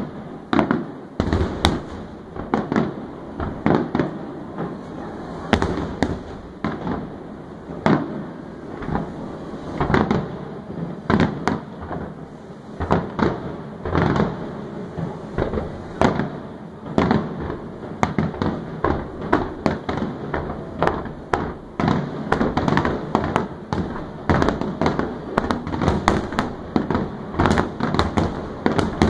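Aerial fireworks display with shells bursting in rapid, steady succession, one or two sharp bangs a second over a continuous rumble.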